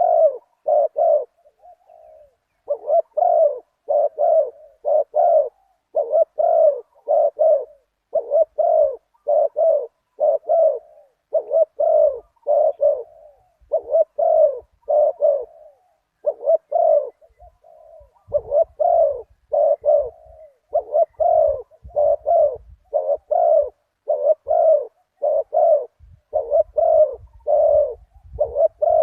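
Spotted dove cooing over and over in a deep voice: short phrases of a few low coo notes, repeated with brief gaps between them.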